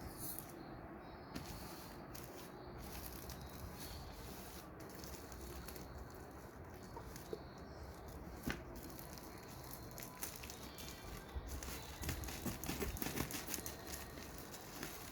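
Faint handling noises of unpacked lamps and their plastic packaging: rustling and crinkling with light clicks and knocks, a sharper click about halfway through and a busier run of small clicks near the end.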